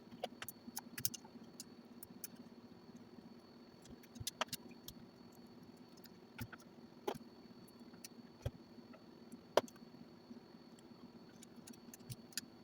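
Small parts and tools being handled on a workbench: scattered light clicks and taps, a dozen or so, over a steady low hum.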